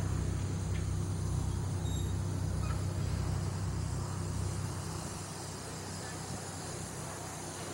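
Steady low rumble of an idling locomotive engine, with a faint pulsing underneath, easing slightly about two-thirds of the way through.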